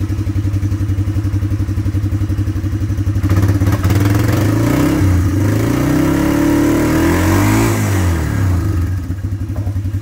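An engine idling with a steady, rapid pulse. From about three seconds in, a louder engine sound swells over it, its pitch bending up and down, then eases off near nine seconds.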